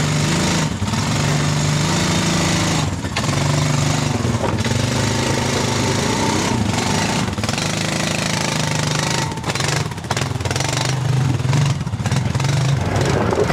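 ATV engine running on a rocky trail, its low note shifting up and down as the throttle changes, with a few brief dips.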